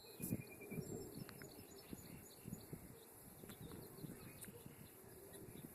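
Quiet outdoor ambience: faint small-bird chirps over soft, irregular low thumps and a few light clicks.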